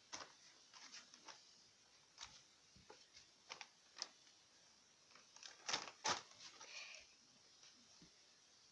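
Faint, scattered light clicks and scuffs, with two louder ones in quick succession about six seconds in.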